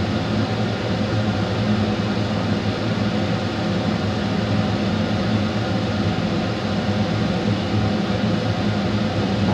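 Steady whirring hum of a kitchen appliance fan, with a low drone underneath.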